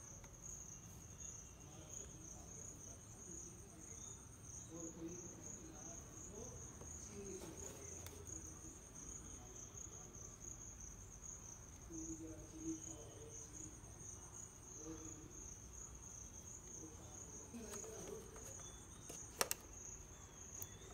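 Clear plastic product box being handled and opened, with faint crinkling and tapping and two sharp clicks near the end as the packaging is prised open. A steady high-pitched pulsing trill runs underneath.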